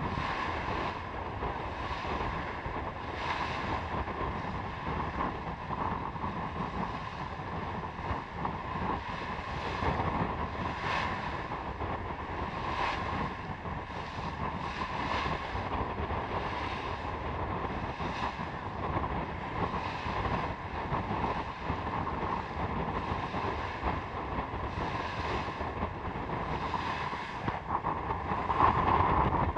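Wind buffeting the microphone over the hiss and rush of bow spray as a sailing yacht under sail cuts through choppy water, with a wave swishing past the hull every second or two.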